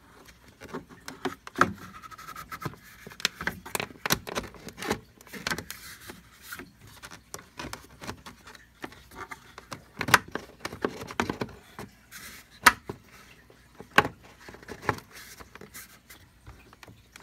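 Irregular clicks, knocks and rubbing as a K&N cone air filter is pushed and worked over the lip of the air-box inlet by hand.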